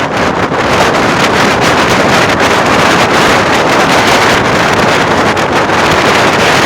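Volvo B10M bus's six-cylinder diesel engine rumbling loud and steady, with wind buffeting the microphone.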